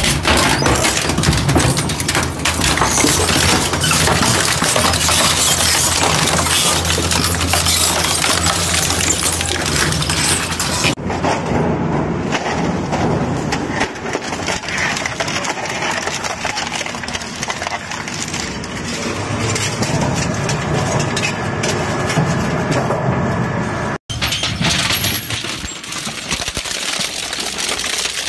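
Industrial shredder crushing hard objects: a dense, continuous run of cracking and crunching over the low hum of the machine's motor, with the sound changing abruptly twice.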